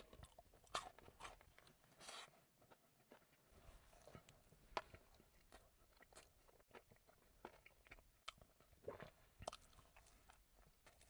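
Faint close-up chewing and crunching of a Ferrero Rocher donut, with scattered small crunches and mouth clicks.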